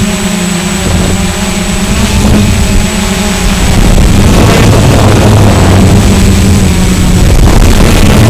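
Small quadcopter drone's electric motors and propellers running loud and steady, with rough buffeting noise; it grows louder about four seconds in.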